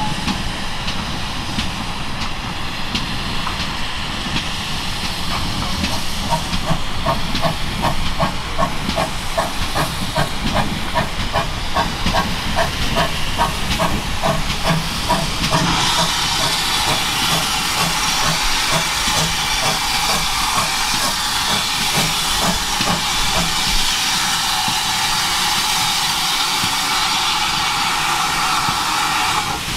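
Steam locomotive working at low speed: its exhaust beats come at about two to three a second and quicken slightly. A loud steam hiss rises about halfway through and carries on after the beats die away.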